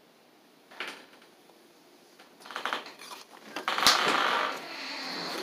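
Close handling noise of a snuff can and the phone: quiet at first, then scattered clicks from about halfway, a sharp knock and a burst of rustling a little before the end.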